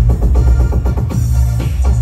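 Live band music: a quick drum beat over a heavy, steady bass line.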